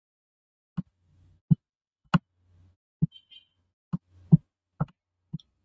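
Computer mouse clicking: about eight short, sharp clicks, irregularly spaced, as controls are selected and dragged.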